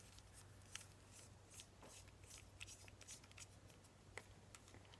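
Near silence with a few faint, scattered clicks and rustles of fingers handling a plastic pen.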